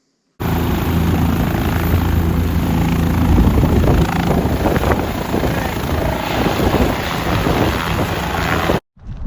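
Medical rescue helicopter running close by, a loud steady rotor and engine noise with a low hum. It starts abruptly about half a second in and cuts off sharply near the end.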